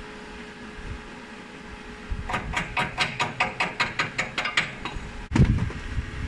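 A chipping hammer tapping slag off a fresh weld on a steel stair step: about fifteen quick metallic taps, roughly six a second, starting about two seconds in. A single dull thump follows about five seconds in.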